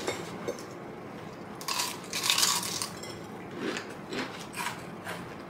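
Fried chicken being bitten and chewed, with a loud crisp crunch about two seconds in and smaller clicks of dishes or cutlery around it.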